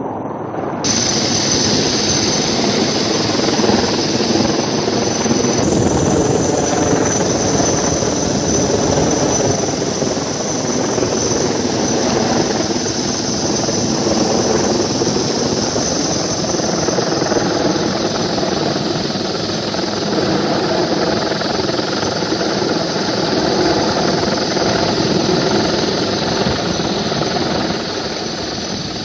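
Helicopter hovering overhead: steady rotor and turbine engine noise with a thin, high, steady whine, starting about a second in.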